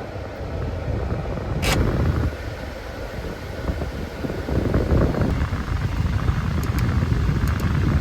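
Vehicle running, a low, uneven rumble throughout, with a brief whoosh about two seconds in.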